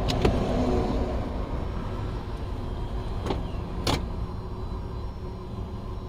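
Power Stow 'n Go rear seat motors of a Chrysler Town and Country running as both seats move together, with a few sharp clicks near the start and twice around three to four seconds in.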